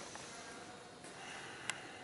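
Quiet room tone: a faint even hiss with one sharp click near the end. No motor or compressor hum or pumping rhythm is heard.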